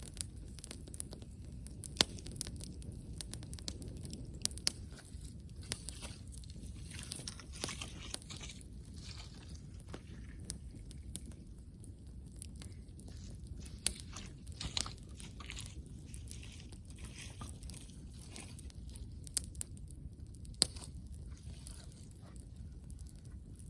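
Wood campfire crackling: irregular sharp pops and snaps, a few much louder than the rest, over a low steady background.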